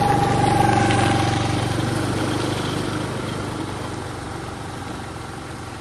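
Motor scooter engine running as the scooter rides away down a dirt track, starting loud and fading steadily.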